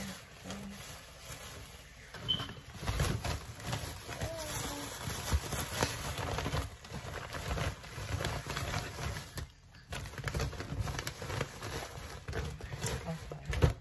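Thin plastic bags rustling and crinkling as they are untied, handled and stuffed, with irregular crackles and a few soft knocks.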